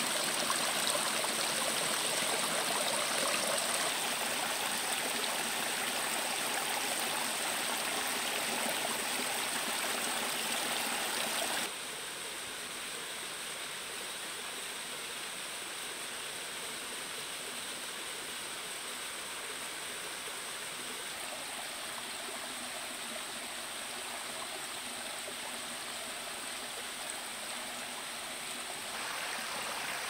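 A small waterfall and its stream: water rushing and trickling over rocks in a steady, even splash. It drops abruptly to a softer level about twelve seconds in and rises again near the end.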